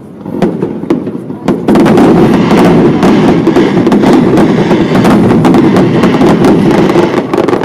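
Aerial fireworks bursting: a few separate bangs, then from about two seconds in a dense, continuous barrage of overlapping bangs and crackle.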